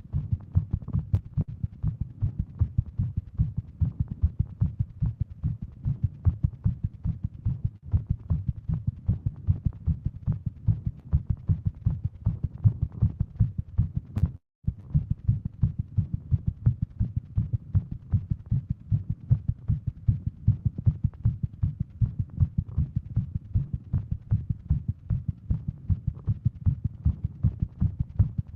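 A woman's heartbeat, fast and regular: tachycardia from Wolff-Parkinson-White syndrome, her heart rate over 150 beats a minute. The sound cuts out briefly about halfway.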